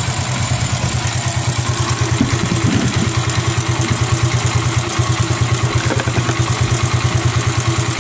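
Single-cylinder engine of an MD90 motorcycle idling with a freshly tuned carburettor: a steady run of quick, even exhaust beats heard close to the silencer.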